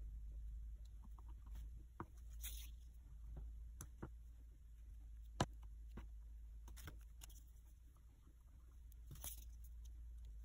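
Faint taps, rubs and light clicks of fingers handling and pressing soft modelling clay on a plastic cutting mat, with one sharper click about five seconds in.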